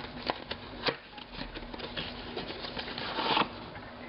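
A small puzzle-cube box being opened and handled: a few light clicks and taps in the first second, then a short rustle of packaging about three seconds in.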